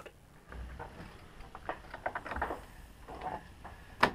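Wooden-framed screen door being opened and gone through: faint knocks and rattles, then a sudden loud bang near the end.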